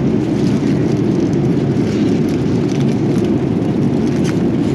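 Steady, deep cabin noise of a jet airliner in flight, with a few light crinkles and taps as foil-covered meal packaging is handled on the tray table.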